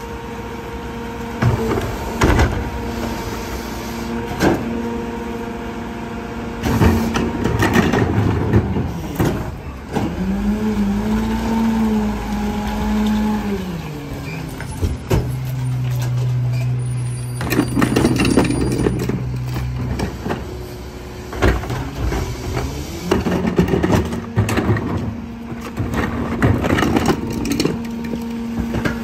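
Rear-loading garbage truck, a Mack MRU with a PowerTrak packer body, working at the curb: steady hydraulic whine as its cart tipper lifts and dumps bins, with repeated clanks and thuds of plastic carts and falling trash. About ten seconds in the pitch rises, holds and falls as the packer runs, followed by a lower steady hum for several seconds.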